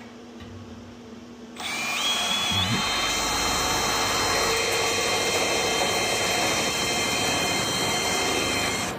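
Power drill driving a spot weld cutter into a spot weld on steel body panel, starting about a second and a half in; its whine climbs briefly and then holds steady until it stops just before the end. Once through the outer panel the cutter just spins, stopping short of cutting the back panel.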